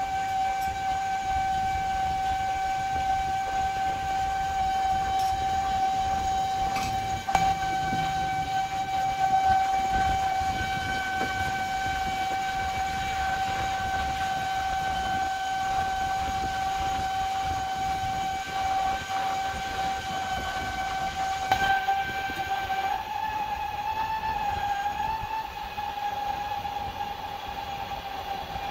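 Metal lathe running with a stack of steel gear blanks in the chuck: a steady high-pitched whine with overtones over a low machine rumble. The pitch wavers slightly near the end, and there are a couple of sharp knocks.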